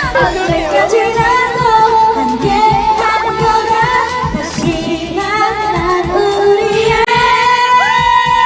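A woman sings a pop song full-voice over a karaoke machine's backing track, holding a long note near the end.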